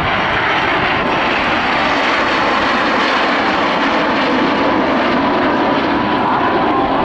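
The Snowbirds team's CT-114 Tutor jets flying past in formation, their turbojets making a steady rushing jet noise.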